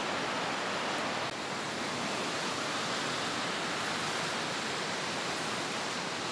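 Steady rush of flowing river water, an even hiss that neither rises nor falls.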